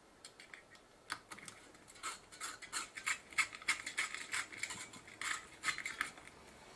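Light metallic clicks, ticks and scrapes from hands and a small tool working on a camcorder's metal tape-deck chassis, a quick irregular run of them starting about a second in.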